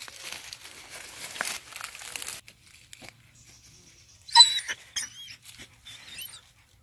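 Crackling rustle of dry leaf litter and twigs for the first two seconds or so. About four seconds in, a dog whines in high, wavering squeaks for a couple of seconds.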